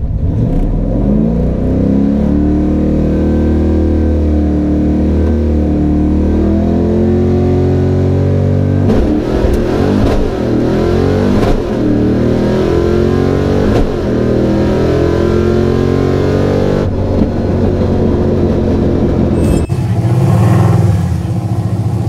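Fox-body Mustang 5.0 V8 with open exhaust dumped behind the door, heard from inside the stripped cabin during a drag-strip pass. Revs climb off the launch, and the pull breaks and picks up again a few times as the manual gearbox is shifted. The engine falls off about seventeen seconds in.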